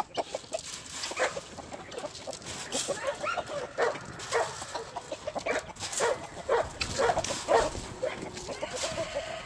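A flock of chickens clucking in short, scattered calls, with a dog's short barks mixed in among them.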